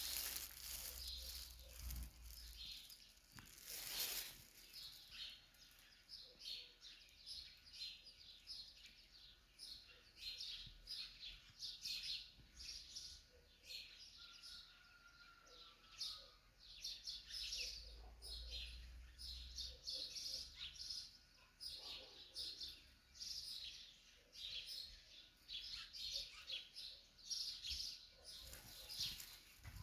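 Small birds chirping, many short high chirps one after another, faint, with a single sharp knock about four seconds in.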